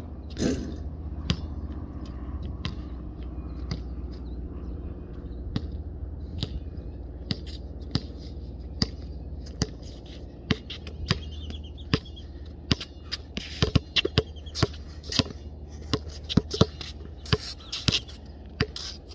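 Basketball bouncing on an asphalt court: scattered bounces at first, then quick dribbling from about twelve seconds in, several bounces a second. A louder knock with a short ring comes near the start, as the shot meets the hoop.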